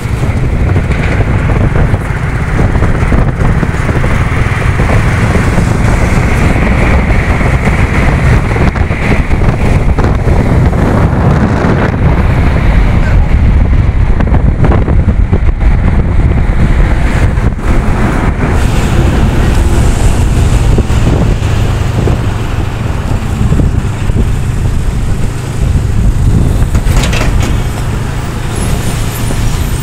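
Wind rushing and buffeting over the microphone of a moving motorbike, with the bike's engine and the road noise of lorries close alongside, steady throughout.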